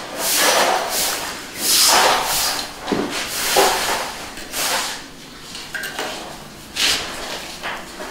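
Steel notched trowel scraping and combing cement tile adhesive across a concrete floor, in a series of irregular scraping strokes.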